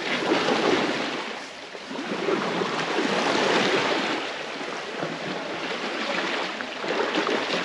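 Water sloshing and swishing around an Asian elephant as it wades, in swells that rise and fall every couple of seconds.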